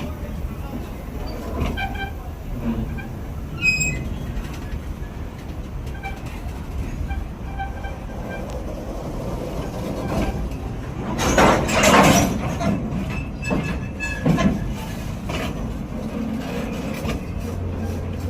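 Freight train of oil tank wagons rolling past on the rails, a steady rumble of wheels with a few short high squeals. There is a louder rush of noise about eleven seconds in.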